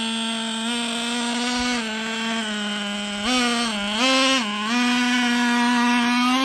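Radio-controlled monster truck's motor running with a steady buzzing tone, stepping up in pitch with throttle twice about halfway through, then holding at the higher pitch near the end before dropping back.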